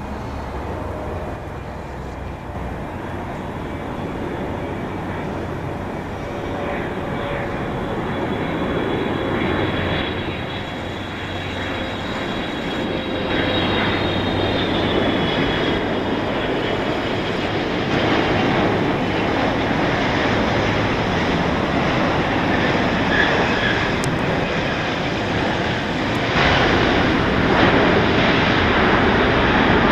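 Boeing 777 freighter's twin GE90 turbofan engines, heard as a jet roar that grows steadily louder as the plane comes in, with a faint whine sliding downward in pitch in the first half.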